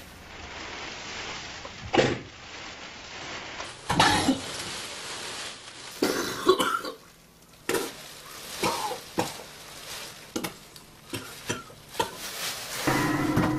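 A wounded man coughing and choking in a string of short, irregular fits, about ten of them, the loudest around two and four seconds in. A low, steady music drone comes in near the end.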